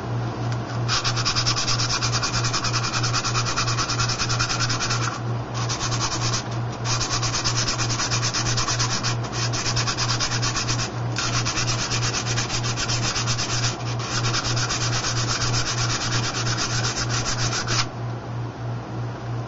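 Coarse sandpaper rubbed rapidly back and forth on the back of a quadcopter propeller blade, taking material off the heavy blade to balance the prop. The scraping starts about a second in, breaks off briefly several times, and stops near the end.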